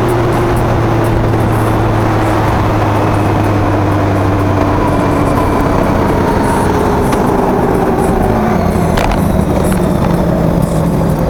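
Car driving: steady road and engine noise, with a hum whose pitch slowly falls as the car slows down leaving the highway. A brief click sounds about nine seconds in.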